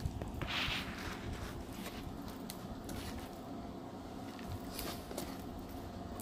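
Soft handling noises of hands kneading and pulling a sticky, clumpy slime, with a short hissy rustle about half a second in and a few faint clicks over a low steady hum.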